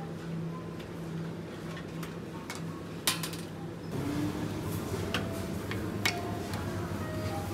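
A wire supermarket shopping cart clinking and rattling as it is handled and pushed, with a louder clack about three seconds in, over a steady low hum.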